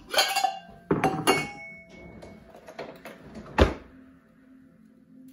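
Stainless steel bowls knocked and set down on a stone countertop: a few clattering knocks with a short metallic ring after them, the loudest about three and a half seconds in.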